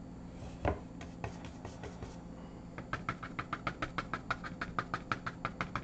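Paintbrush dabbing acrylic paint onto a canvas: a few scattered taps, then about three seconds in a fast, even run of short taps at about five a second as the brush stipples foliage.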